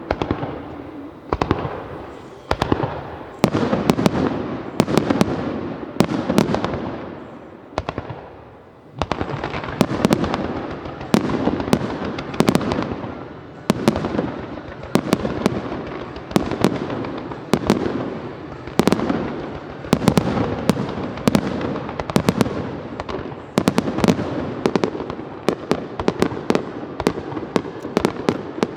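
Aerial fireworks shells bursting in quick succession: sharp bangs about once a second, each trailing off as it fades, mixed with many smaller sharp cracks, with a brief lull about eight seconds in.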